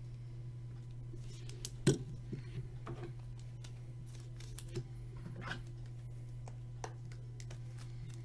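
Baseball trading cards being handled and set down on a table: scattered light taps, clicks and slides, with one sharper knock about two seconds in, over a steady low hum.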